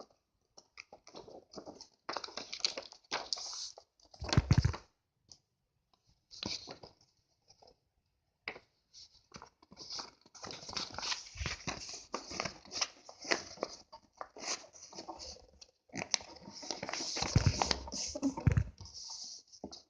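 A sheet of A4 paper being handled, folded and creased, rustling and crinkling in stops and starts. There are two louder thumps, one about four seconds in and one near the end.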